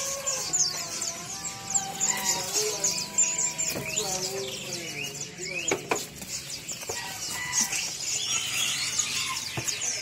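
Dense, continuous chorus of many caged songbirds chirping and trilling over one another, with a rooster calling in the background.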